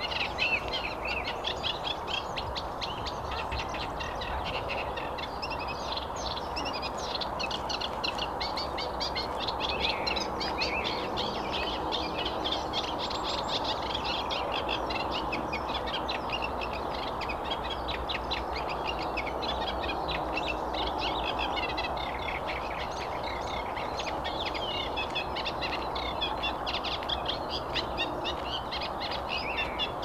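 Eurasian reed warbler singing: a long, unbroken run of rapid chattering notes, over steady background noise.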